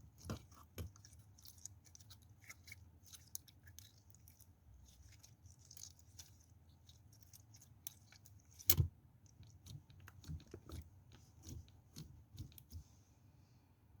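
Soap being cut with a knife: scattered crisp crunches and crackles, with one louder knock just under nine seconds in. The crackles thin out and stop shortly before the end.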